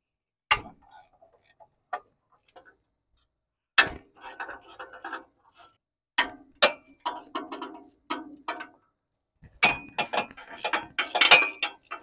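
A 6 mm ball-end hex (Allen) tool working the steel bolts of the header manifold loose: a couple of sharp metal clicks, then runs of rapid ratchet-like clicking and tool clatter, loudest near the end.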